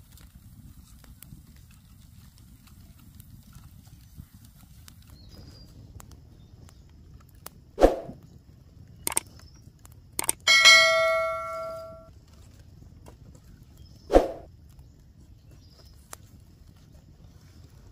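A dull knock, a few light clicks, then a metal object struck once, clanging and ringing out for about a second and a half; another dull knock follows a couple of seconds later.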